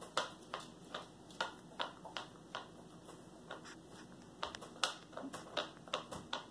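A small dog licking peanut butter off a plastic plate: wet tongue-and-mouth clicks and smacks, about two to three a second, coming a little faster in the second half.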